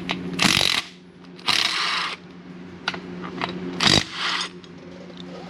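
A power tool run in three short bursts as it backs out bolts on an engine, over a steady low hum.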